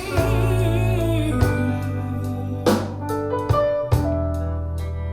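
A pop-soul song played back through B&W 702 S3 floorstanding loudspeakers, in an instrumental gap between vocal lines: held piano or keyboard chords over a bass line, with a few drum hits.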